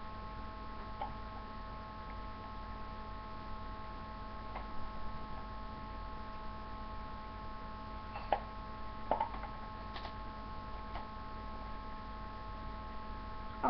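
Steady electrical hum made of several held tones, with a few faint irregular clicks and knocks from objects being handled, the clearest about eight and nine seconds in.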